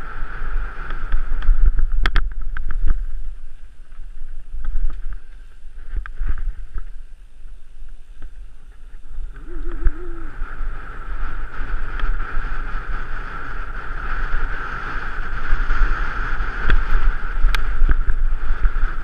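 Mountain bike rolling fast down a rough dirt singletrack, heard from a camera on the rider: steady wind buffeting on the microphone over tyre and trail noise, with the odd sharp rattle or knock from the bike, clearest about two seconds in and near the end.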